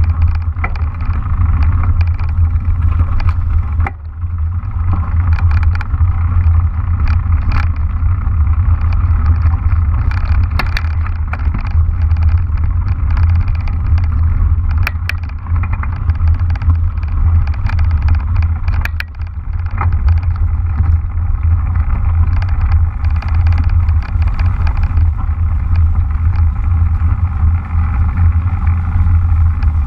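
Ride noise on a mountain bike's action-camera microphone: a steady low rumble from wind and the rolling bike, with scattered clicks and rattles as the tyres run over gravel and leaf-covered paths.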